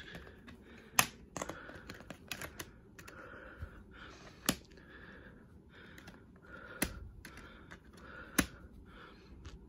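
Plastic clicks and clacks of a multi-disc DVD case being handled, its hinged disc trays flipped over and the discs knocking against the plastic. A few sharp clicks stand out among softer rattling: about a second in, near the middle, and twice in the last three seconds.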